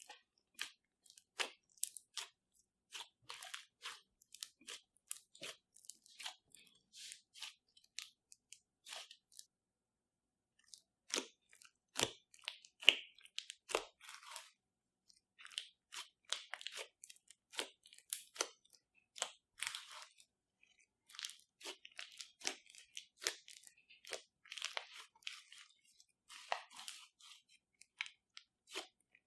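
Clear slime full of glitter being squeezed, folded and pressed by hand, giving irregular sticky clicks, pops and crackles, with a short pause about ten seconds in.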